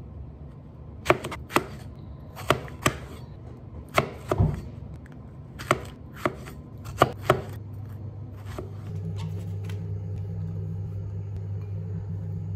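Chef's knife slicing strawberries on a plastic cutting board: about a dozen sharp knocks of the blade meeting the board at an uneven pace, often in quick pairs. After about nine seconds the cutting stops and a steady low hum takes over.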